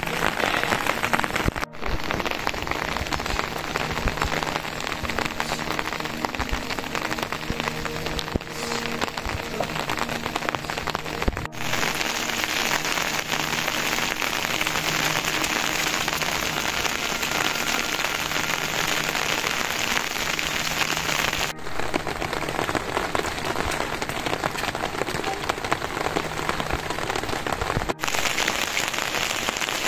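Monsoon rain falling steadily, an even hiss that breaks off for an instant a few times.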